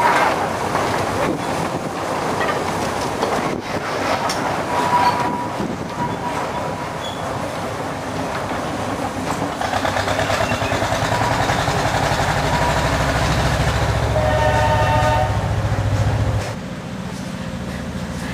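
Narrow-gauge steam locomotive running with its train, a steady rhythmic beat of wheels and exhaust that builds in loudness. A short whistle blast comes about fifteen seconds in, and the level drops suddenly soon after.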